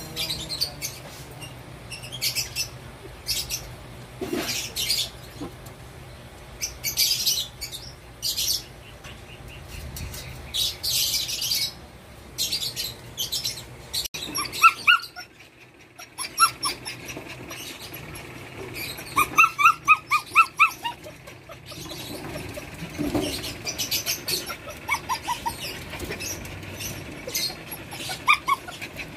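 Belgian Malinois puppies whimpering in quick runs of short, high, rising yelps, with rustling and scratching noises in between.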